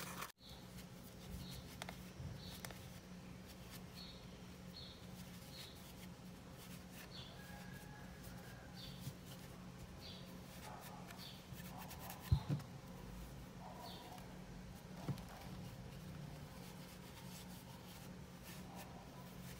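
Faint rustling of hands pushing polyester fiberfill stuffing into a small crocheted amigurumi piece, over a steady low hum. There is one sharp knock about twelve seconds in, and short high chirps come at irregular intervals.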